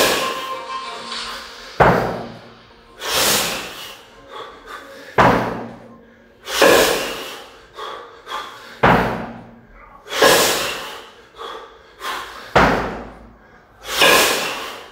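A pair of 24 kg competition kettlebells in a double jerk set, knocking sharply as they drop back into the rack about once every three and a half seconds. Between the knocks the lifter gives a loud, hissing forced breath, about a second long, with each rep.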